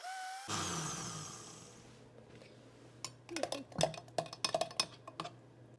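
A brief rush of noise that fades over about a second and a half, then a quick run of knocks and clicks, some with a slight ring, from a utensil against a bowl as avocado is mashed into guacamole.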